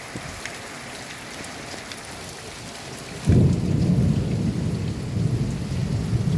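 Torrential rain falling steadily. About three seconds in, a sudden loud thunderclap breaks out and rumbles on.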